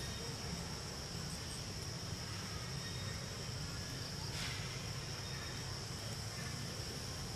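Steady high-pitched insect chorus, one unbroken shrill tone, over a low rumble. A brief rustle about four and a half seconds in.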